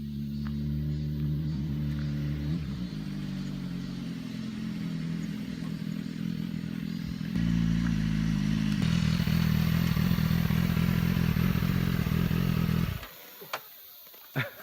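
Motorcycle engine running, its pitch stepping up and down, getting louder about halfway through; the sound cuts off abruptly near the end.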